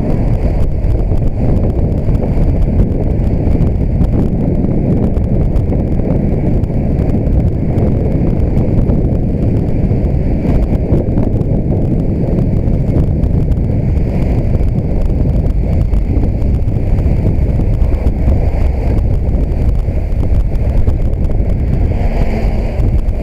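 Wind buffeting the microphone of a helmet-mounted action camera on a moving road bike: a loud, steady low rumble with a constant patter of small knocks from the shaking camera.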